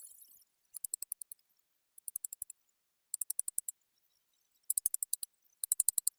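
Spider sound effect: five short bursts of rapid, dry, high-pitched clicking, each burst about half a second of some eight quick ticks, with silent gaps of about half a second between bursts.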